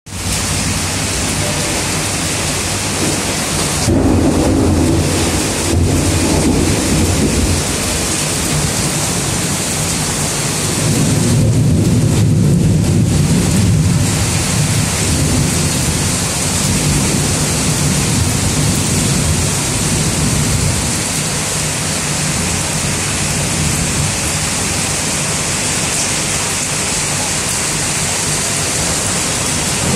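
Heavy rain as a steady loud hiss, with deep rumbles of thunder swelling about four seconds in and again around eleven seconds.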